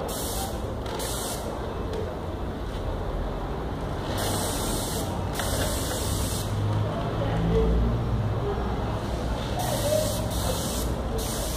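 Paint spray gun hissing in several on-off bursts of a second or so, driven by a homemade air compressor whose steady low hum runs underneath.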